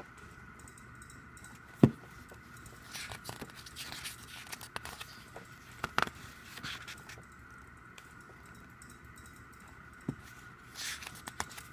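Pages of a photobook being turned and handled, paper rustling and sliding against paper, with a sharp thump about two seconds in, the loudest sound, and lighter knocks later. A faint steady high tone runs underneath.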